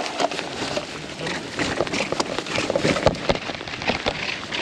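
Mountain bike clattering over a rough, wet trail: quick irregular knocks and rattles over a steady rush of tyre noise.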